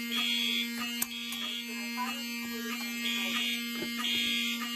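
A fire alarm system in alarm with two horns sounding together. A Wheelock 7002 horn gives a steady, buzzy tone set to continuous. A Cerberus Pyrotronics MTL-S17F horn sounds the code-3 temporal pattern: half-second blasts in threes, with a longer pause between the groups. A short sharp click comes about a second in.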